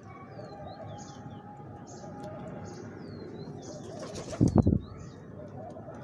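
A pigeon's wings flap in a short, loud burst of a few quick beats about four and a half seconds in. Brahminy starlings chirp and whistle in short calls throughout.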